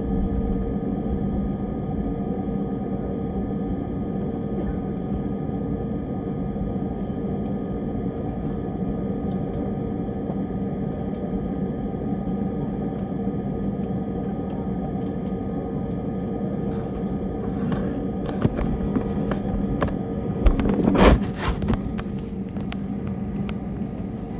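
Steady hum of an airliner cabin while the plane taxis after landing, with idling engines and air systems holding several steady tones. Near the end come scattered clicks and a short, louder clatter of handling noise in the cabin.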